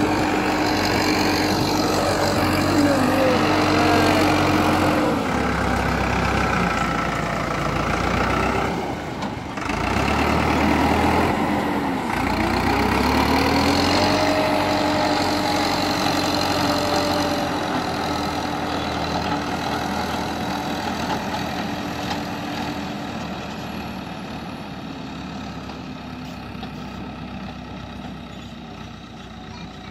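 Farmtrac 6060 tractor's diesel engine running, its pitch sagging and climbing back around the middle as the load changes, then fading gradually toward the end.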